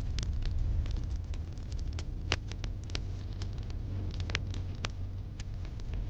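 Wood fire in a fireplace crackling, with frequent sharp pops, the loudest about two seconds in, over a low steady rumble.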